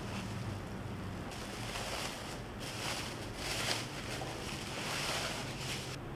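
Bubble wrap rustling and crinkling in uneven surges as hands pull it off a pot, over a low steady hum.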